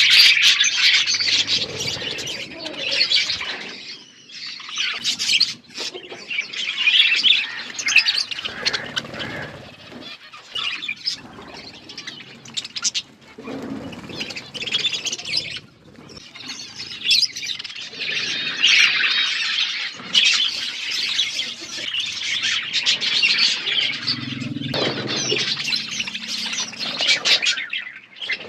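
A flock of budgerigars chattering, a dense chorus of overlapping chirps and squawks, with a few short lulls.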